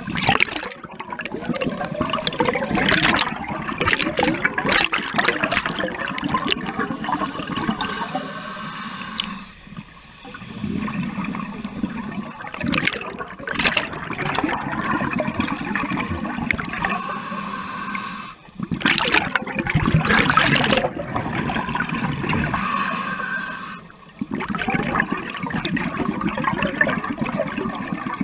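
Scuba regulator breathing underwater: long stretches of bubbling, gurgling exhaust bubbles, broken by three brief quieter lulls.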